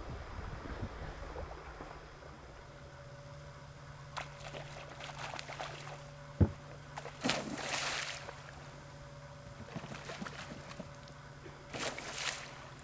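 Kayak paddle dipping into water: scattered drips and trickles, with two louder splashing strokes about seven and twelve seconds in. A single sharp knock comes just before the first splash, and a faint steady hum runs underneath.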